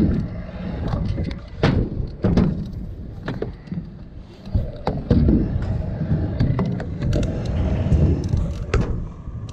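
Stunt scooter riding on concrete skatepark ramps: the wheels roll with an uneven rumble, broken by several sharp clacks and thuds as the deck and wheels hit the surface.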